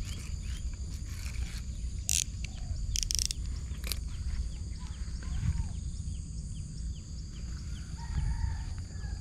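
Riverside ambience of birds calling with many short, repeated chirps and a few lower arched calls, over a steady high insect drone. A few sharp clicks sound around two to four seconds in.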